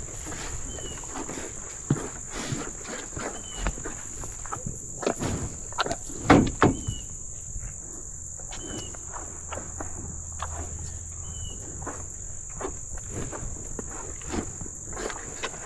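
Cattle moving and feeding at a trough: irregular hoof steps and knocks, the loudest cluster about six seconds in, over a steady high insect drone. A short high chirp recurs every two to three seconds.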